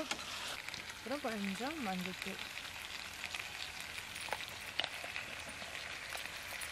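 Chicken pieces sizzling in a steel pan on a gas stove, a steady faint frying hiss, with a couple of light spoon clinks a little past the middle.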